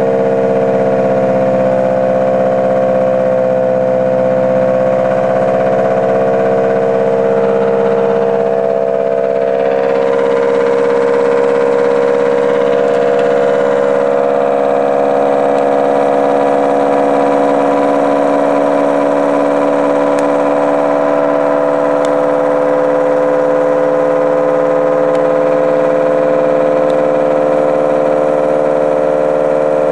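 Homemade pulse motor generator running at low speed, giving a loud, steady electrical whine made of several tones at once; the pitch wavers a little in the first few seconds and the upper tones shift around ten seconds in.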